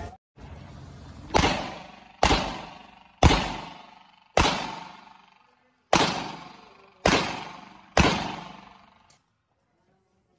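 Semi-automatic pistol fired seven times in a practical-shooting run, roughly a second between shots, each report echoing off the range walls. A faint knock follows near the end.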